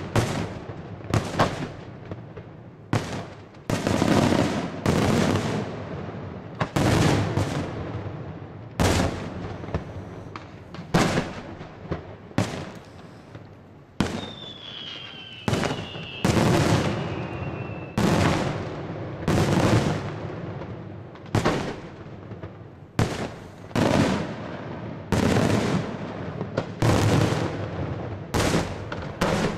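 Daytime fireworks display: aerial shells bursting in an irregular series of loud bangs, roughly one or two a second, each followed by a trailing echo. A faint falling whistle is heard about halfway through.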